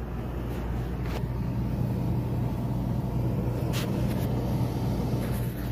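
RV rooftop air conditioner running, a steady low hum of its blower and compressor that gets a little fuller about a second in, with a few faint clicks.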